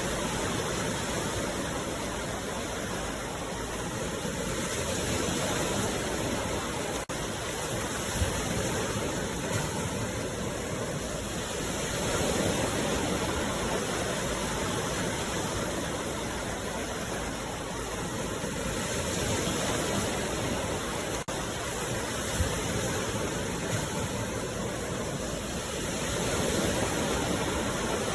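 Sea waves breaking and washing ashore: a steady rush of surf that swells and eases about every seven seconds.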